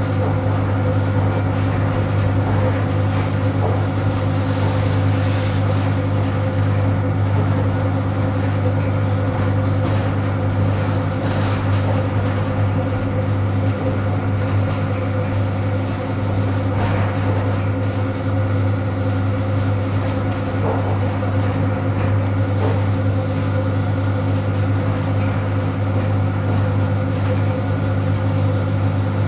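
ED9M AC electric train running, heard from inside the passenger car: a steady low hum with a ladder of even tones above it, and scattered clicks and knocks.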